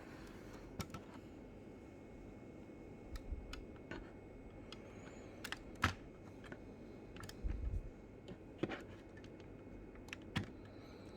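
Irregular small clicks and taps of hands handling a 1:18 scale diecast model car and its plastic packaging, with a couple of dull bumps.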